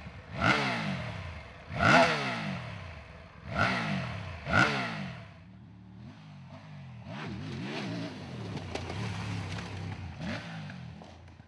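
Triumph Tiger 900 Rally Pro's three-cylinder engine revved sharply four times, each rev rising and falling away, then running on at part throttle with its pitch wavering up and down as the bike is ridden off-road.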